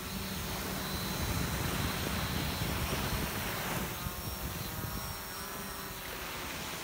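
Gabian Drone prototype fishing quadcopter's rotors buzzing as it climbs away from the hand launch, towing a fishing line. Its steady hum fades after about a second as it draws off. Wind and surf rush underneath.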